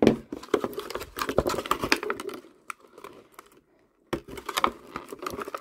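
Clear plastic blister packaging crinkling and clicking under the fingers as sellotape is picked and peeled off it, in quick irregular clicks and rustles, with a short quiet pause about three and a half seconds in.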